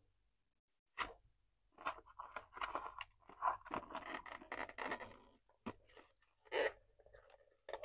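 Cardboard packaging crunching and rustling in a dense stretch as an action figure is worked out of its plastic-free box, with a few sharp clicks before and after.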